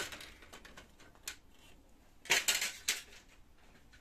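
Hard plastic clicking and clattering as the rear plastic cover of an HP LaserJet 2400-series printer is worked free and set down, with a quick cluster of knocks a little past halfway.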